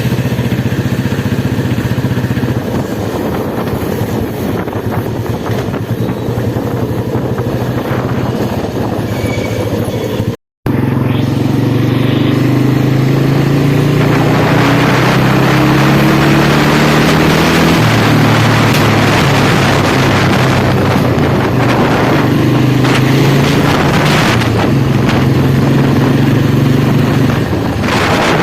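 Royal Enfield Bullet single-cylinder motorcycle engine running steadily. After a short break about ten seconds in, it accelerates hard, its pitch climbing in stages, with a growing rush of wind noise.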